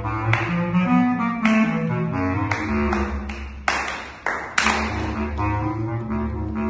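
Bass clarinet playing a quick line of short, separate low notes, with two sharp, noisy accents around the middle.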